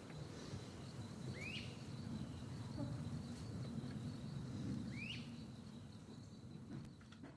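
Crickets trilling steadily, with a bird giving two short rising calls a few seconds apart, over a low rumble; the sound fades down near the end.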